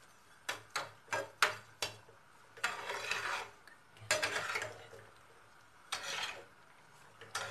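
A slotted spatula stirring semolina halwa in a metal pan. It starts with a quick run of taps against the pan, then comes several short scraping strokes across the pan's bottom.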